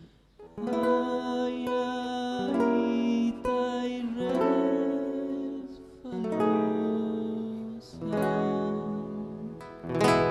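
Folk music on acoustic guitar, starting after a brief pause and moving in phrases of long held melody notes.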